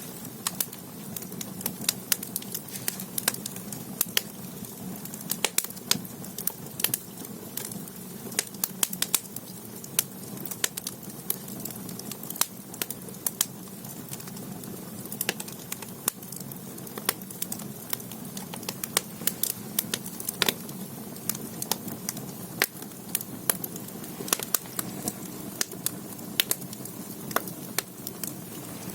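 Firewood burning in the firebox of a Korean ondol floor-heated room: irregular sharp crackles and pops, several a second, over the steady low rumble of the fire.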